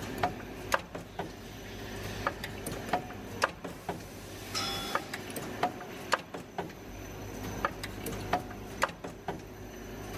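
Automatic clip assembly machine running: a steady hum from its vibratory parts feeder under sharp mechanical clicks from the tooling, about two a second, with a short hiss about four and a half seconds in.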